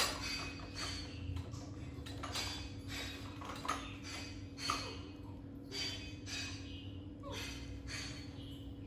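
Dishes and plastic containers clinking and clattering in a plastic dish rack as a baby monkey rummages through them, with an irregular string of rattles and several sharper knocks. A steady low hum runs underneath.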